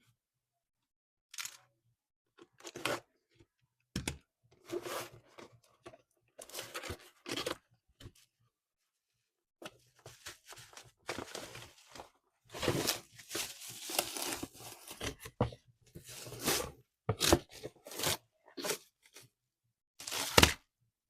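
Toy packaging being torn open and handled: short bursts of tearing and crinkling with silent gaps between them.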